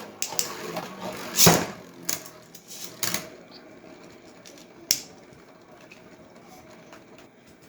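Scattered sharp plastic clacks of Beyblade tops and launcher being handled between battles, the loudest about a second and a half in and again near five seconds, then a faint steady background.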